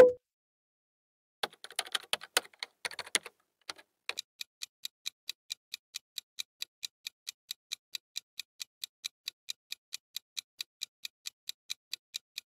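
Clock-ticking countdown sound effect, even sharp ticks at about four a second. Before the ticking settles in, a short pop and a brief run of irregular clicks.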